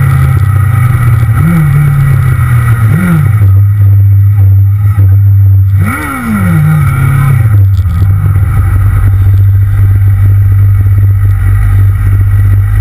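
Motorcycle engine running while riding, its revs rising and falling briefly a couple of times, then one bigger rise about six seconds in that falls away over the next two seconds.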